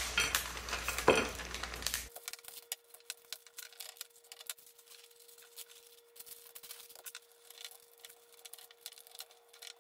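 Parchment paper crinkling and a wooden rolling pin working dough on a countertop. About two seconds in, the sound drops abruptly to faint scattered clicks over a steady hum.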